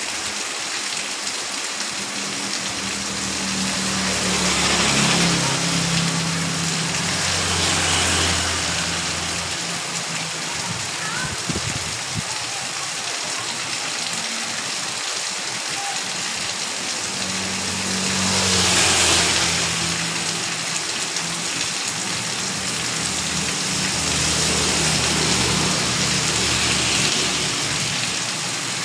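Heavy rain falling steadily on a paved street and garden. Vehicles pass on the wet road three times, each rising and fading with a tyre hiss and a low engine hum.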